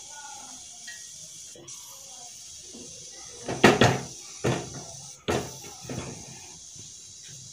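Fenugreek seeds frying in hot oil in a steel pan, a faint steady sizzle: the seeds have browned. About halfway through come four or five sharp knocks and thumps, the first the loudest.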